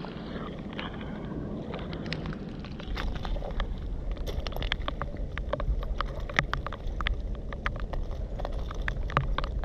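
Stones and shards on a shingle foreshore clinking and crunching. Irregular light clicks start about three seconds in, over a low wind rumble on the microphone.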